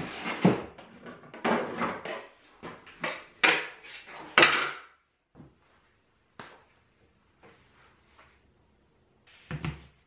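A plywood drawer on a rolling cabinet is pulled open and the wood scraps in it are rummaged through, knocking and scraping together. The rummaging stops about halfway, leaving a few light knocks, then a dull thump of something set down on a wooden workbench near the end.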